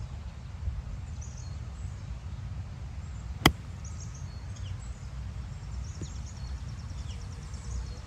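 A lob wedge striking a golf ball once, a single sharp click about three and a half seconds in, over a steady low rumble, with birds chirping in the background.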